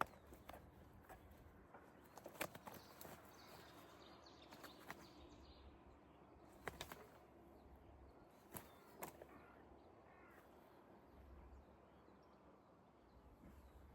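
Near silence with scattered faint clicks, taps and rustles, the loudest a couple of seconds in and again near the middle, and a few faint bird chirps.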